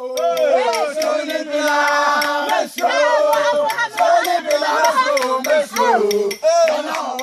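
A group of people singing or chanting together in unison, with notes held for a second or more, over a steady run of sharp claps.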